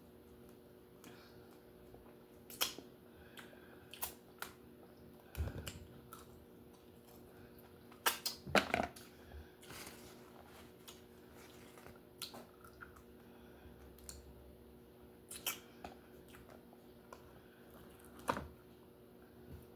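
Scattered sharp clicks and cracks of a lobster's shell being broken apart, with a cluster of louder cracks about eight to nine seconds in.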